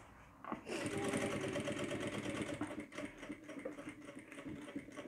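Sewing machine running, stitching a seam through vinyl and bias binding. It starts about half a second in, runs at a steady rate, and is fainter over the last couple of seconds.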